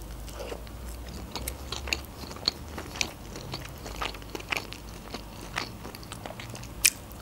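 Close-miked chewing of a bite of lavash roll: soft, irregular wet mouth clicks, with one sharper click near the end.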